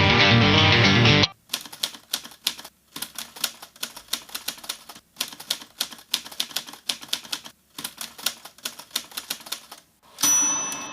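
Full-band rock music cuts off abruptly about a second in. Then a typewriter is typed on in quick runs of key strikes with short pauses, and near the end its carriage-return bell dings once and rings out.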